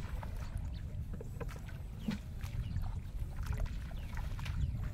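Footsteps splashing through shallow water and mud in a flooded rice field, with scattered small clicks and splashes, over a steady low rumble of wind on the microphone.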